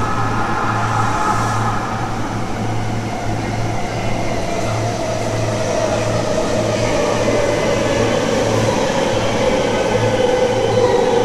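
Rinkai Line electric train running along the platform, with a whine that falls slowly in pitch over several seconds as it slows into the station.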